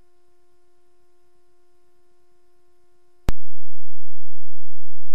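A steady electronic hum: one held tone with overtones, with a sharp click a little over three seconds in.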